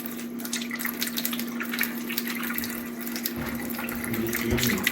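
Faucet running into a sink as hands are washed under it, water splashing, with a steady hum under the flow.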